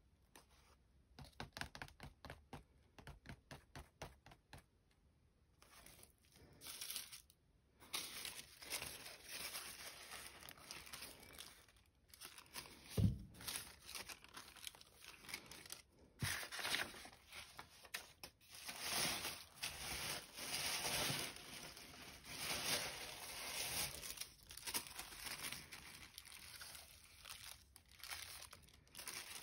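Thin printed collage paper being handled and torn by hand: rustling, crinkling and tearing. It opens with a run of light, quick ticks, and one dull thump comes just before halfway.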